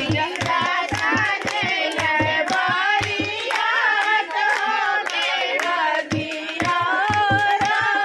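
A group of women singing a mehndi folk song together, with steady hand clapping and the low beats of a dholak. The dholak drops out for a few seconds in the middle, then comes back in while the singing and clapping carry on.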